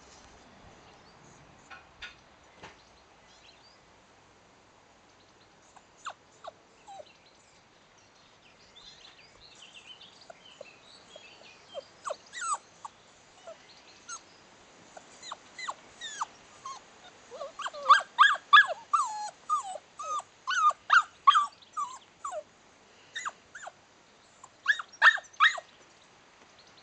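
A litter of young puppies whining and yipping in short, high calls that fall in pitch: only a few at first, then coming thick and fast from about halfway through, with a last quick cluster near the end.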